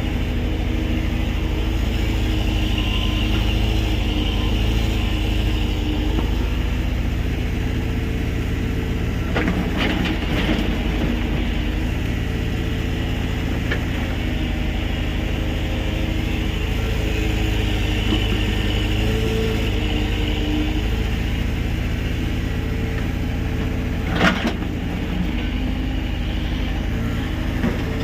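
Hydraulic excavator's diesel engine running steadily, working, with a few sharp knocks: a cluster about a third of the way in and a single one near the end.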